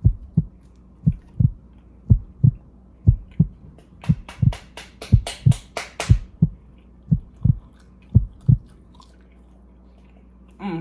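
Heartbeat sound effect: steady lub-dub double thumps about once a second, with a quick run of sharp clicks around the middle.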